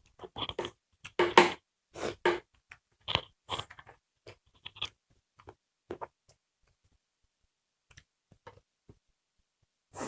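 Close-miked eating sounds: irregular bursts of chewing on a rice-and-curry meal, busy for the first few seconds, then thinning to a few faint clicks.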